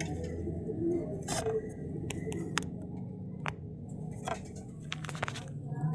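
Scattered light clicks and small handling noises, about a dozen short ticks spread unevenly, over a steady low hum.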